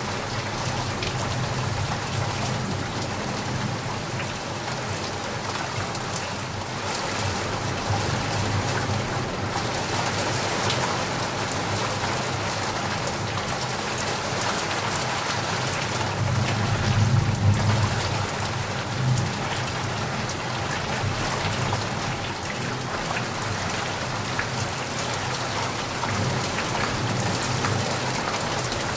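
Steady rain falling, with a low rumble of thunder that swells a little past halfway and fades again.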